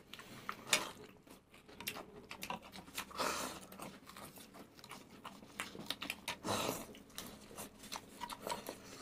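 People chewing food, with a few short slurps of noodles and scattered small clicks.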